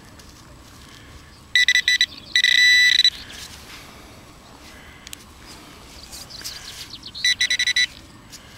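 Garrett Pro-Pointer handheld pinpointer beeping in fast electronic pulses as it is pushed into a clod of soil, signalling a metal object in the dirt. There are three bursts: one about a second and a half in, a longer, almost continuous tone just after it, and another burst near the end.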